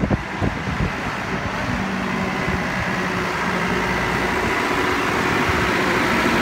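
Lindner Geotrac tractor's diesel engine running as the tractor drives up, growing steadily louder as it comes close.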